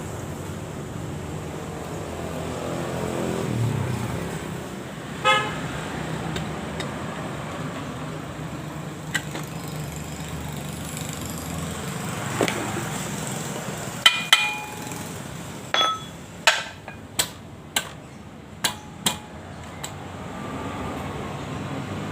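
Passing traffic in the background, then a run of about eight sharp metallic clinks and knocks in the second half, some with a short ringing tail, from metal engine parts and tools being handled and tapped.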